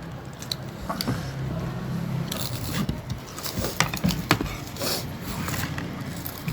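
Eating sounds at a shared meal of biryani: chewing, with scrapes and light clicks against plates several times.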